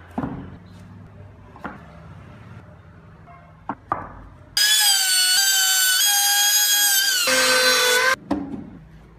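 Wooden boards knocked together and set down on a workbench a few times, then a power tool's motor whines at a high pitch for about three and a half seconds, dropping lower near the end before cutting off suddenly.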